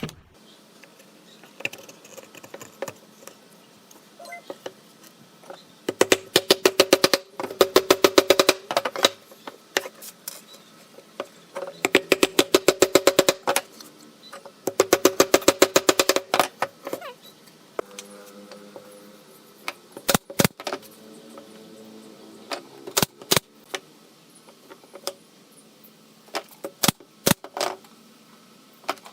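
Three bursts of very rapid tapping, each a couple of seconds long and carrying a ringing tone, followed by scattered single sharp knocks.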